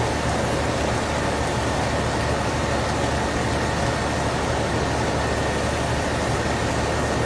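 Vehicle engine idling steadily: a constant low rumble with a faint steady high tone over it.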